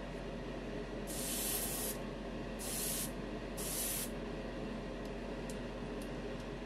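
Gravity-feed airbrush with a 0.5 mm needle spraying thin enamel paint at about 20 PSI, in three short hissing bursts, the first about a second long and the next two about half a second each, over a steady low hum.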